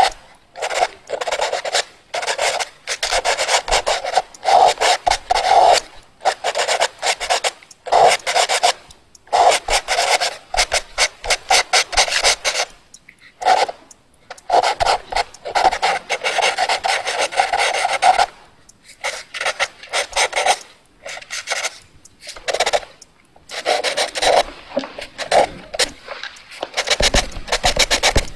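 Fast drawing strokes: a drawing tool rasping and rubbing across a surface in rapid runs of strokes lasting a second or two each, broken by short pauses.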